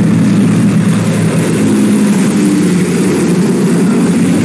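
Light single-engine airplane's piston engine and propeller running loud and steady as it passes low overhead.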